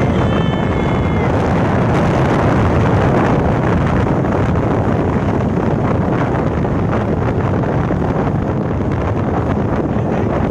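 Wind buffeting the microphone of a Yamaha Fascino scooter on the move, over a steady rush of engine and road noise. A short high-pitched tone sounds in the first second.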